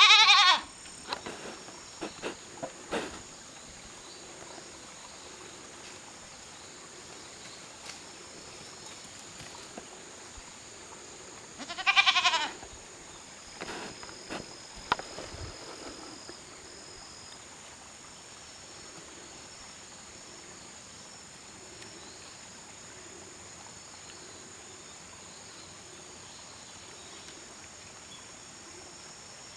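A goat kid bleating twice, a short quavering call at the very start and another about twelve seconds in, calling after losing sight of the herd. Between the calls are a few light knocks and steady high insect chirring.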